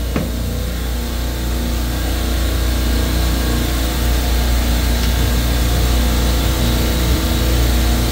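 Steady hum and drone of running refrigeration machinery, with several steady tones over a strong low hum, and a single brief click just after the start.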